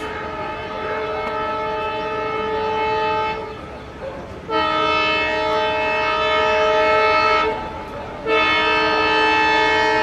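WDP4D diesel locomotive's multi-tone air horn sounding in long, steady blasts: one ends a few seconds in, a louder one follows after a short gap, and another starts near the end. The horn is a warning to people walking on the track ahead.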